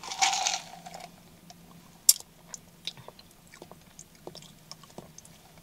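Quiet close-mic mouth sounds of someone tasting an iced drink: a short breathy sound about the first second, then a string of small scattered clicks, lip smacks and swallows over a faint steady low hum.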